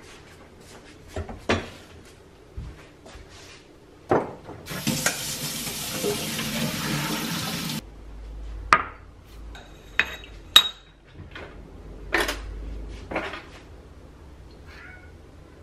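Kitchen handling sounds: a few clinks of a metal pot and utensils, then about three seconds of tap water running to rinse the cooked udon in cold water, which stops suddenly. After that a glass bowl is set down, followed by several sharp clinks.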